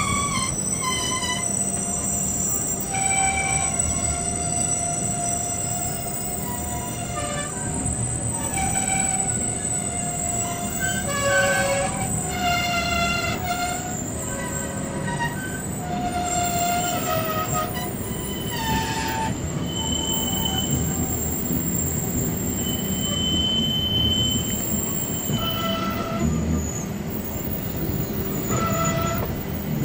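Wheels of the Bernina Express squealing against the rails as the train rounds a tight curve: high whistling tones that keep changing pitch and come and go, over the steady running rumble of the train, heard from one of its own coaches.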